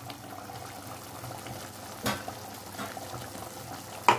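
Curry bubbling and popping steadily in a pan on a gas stove after the ground coconut-cashew paste has gone in. There are two sharp knocks, one about two seconds in and a louder one near the end.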